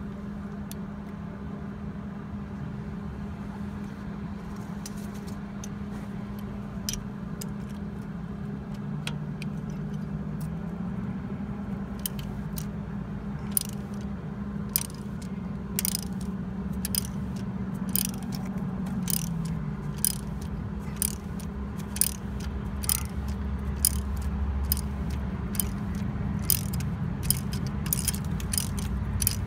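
Ratchet wrench clicking in short back-strokes as it turns out a rusted exhaust manifold stud by a nut welded onto it. The clicks are sparse at first and come several a second in the second half, over a steady low hum.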